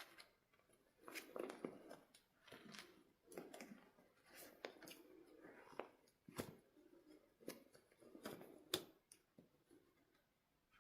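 Faint handling sounds of a toy and its packaging: soft rustles and scrapes broken by irregular sharp clicks, the sharpest click about nine seconds in, then quieter near the end.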